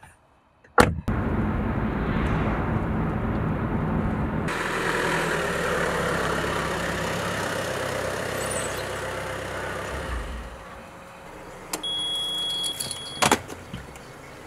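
A van door shuts with a loud knock and the van's engine runs, then the van pulls away and drives past, its noise swelling and fading out. Near the end comes a high electronic beep of about a second and a half, ending in a sharp click.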